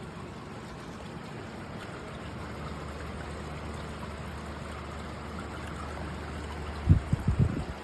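SUNGDOGIN portable evaporative swamp cooler running: a steady rush of fan air with water trickling through its cooling pads. A few loud, low thumps about seven seconds in.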